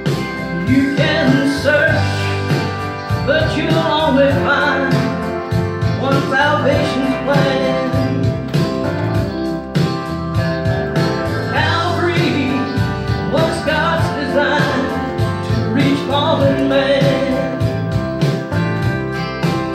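A woman singing a country gospel song into a handheld microphone, over an accompaniment with guitar.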